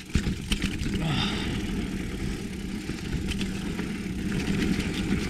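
Wind rushing over a helmet-mounted action camera's microphone and tyres rumbling over a dirt trail as a mountain bike rolls downhill, with scattered clicks and rattles from the bike.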